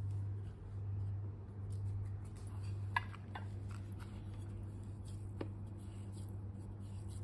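A few light clicks and taps of hands kneading sticky sesame-jaggery paste against a stainless steel bowl, over a steady low hum.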